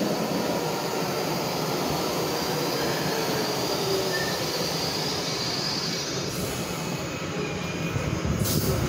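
Metro subway train pulling into an underground station: a steady rumble of wheels on rail with faint squealing tones, easing as it slows to a stop. A short hiss comes near the end.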